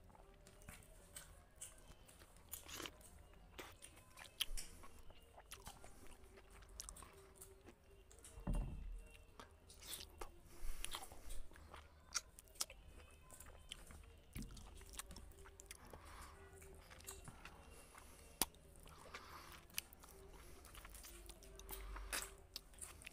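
Close-up eating sounds: a person chewing rice and curry eaten by hand, with wet finger squelches on the plate and scattered small clicks and crunches.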